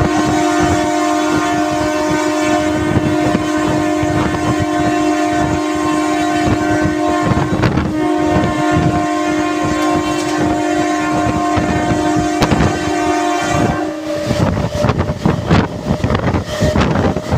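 Indian Railways express train locomotive horn sounding one long, steady chord for about fourteen seconds, briefly dipping about eight seconds in, over the rattle and clatter of the moving train. After the horn stops, wind buffets the microphone over the running noise.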